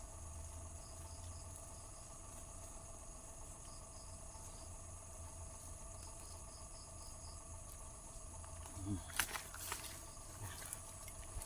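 Insects chirping steadily, with a shriller pulsing chirp that comes in short runs of four or five. A few sharp knocks about nine seconds in.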